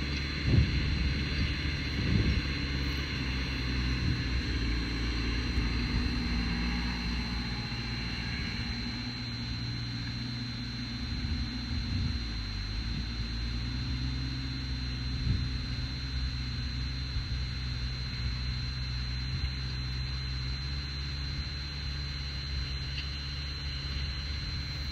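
Landini Mythos tractor's diesel engine running steadily while working a cultivator, its pitch drifting slightly, with a few short knocks in the first couple of seconds and another about two-thirds of the way through.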